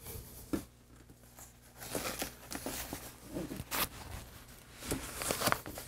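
Packaging being handled: short, intermittent rustles and scrapes of the protective wrap around a new computer, with a few light clicks, busier after the first second or so.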